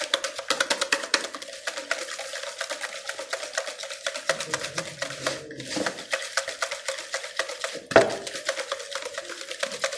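Hand beating of eggs into creamed ghee and sugar in a bowl: the utensil clicks against the bowl rapidly and evenly, several times a second. There is one louder knock late on.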